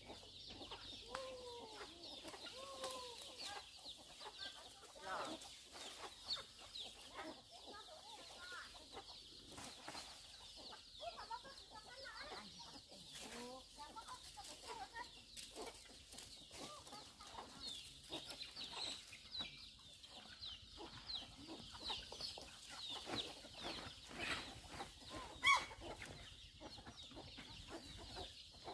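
Free-range chickens clucking around a farmyard, with a constant high chirping in the background and an occasional sharp click.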